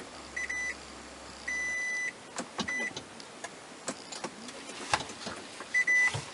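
Toyota Prius dashboard beeper sounding single-pitch beeps: a quick pair, a longer beep of about half a second, another short beep, then a quick pair near the end. Sharp clicks of dashboard buttons being pressed fall between them.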